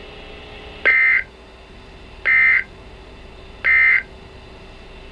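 NOAA Weather Radio's SAME digital end-of-message code: three short, identical bursts of warbling data tones, about 1.4 s apart, over faint radio hiss and a steady hum. It marks the close of the weekly test broadcast.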